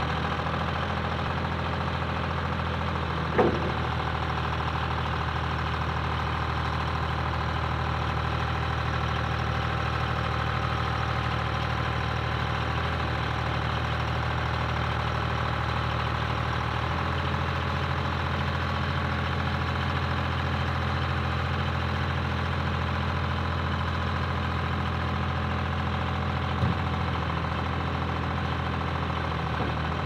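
Dynahoe 160 backhoe's engine running steadily while the front loader bucket is raised and lowered on its hydraulics; the engine note changes about halfway through. A short rising squeal comes a few seconds in, and a single knock near the end.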